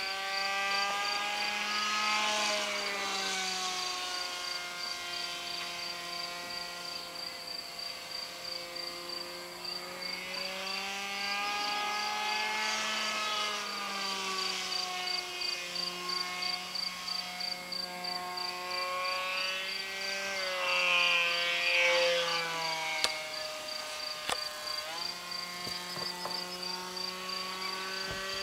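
Radio-controlled model F-16 jet's motor droning in flight, its pitch rising and falling several times. It is loudest a little past the middle, and two sharp clicks come near the end.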